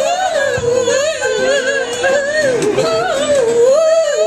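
Wordless male singing, a wavering held melody, over an acoustic guitar being strummed.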